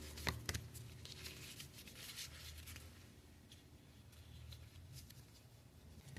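Trading cards being handled: faint rustling and light clicks, busiest in the first three seconds and then quieter.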